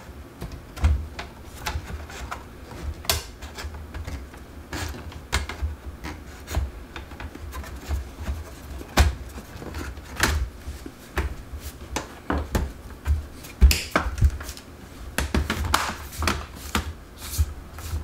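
Plastic palmrest of a Dell Latitude E6540 laptop being pressed down onto the chassis, its clips snapping into place: a string of irregular clicks and light knocks with soft thumps from the hands pressing.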